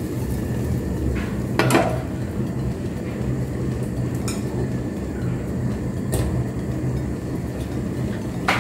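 Butter and oil sizzling steadily in a frying pan, with a few sharp clinks of kitchenware against the pan, the loudest just under two seconds in.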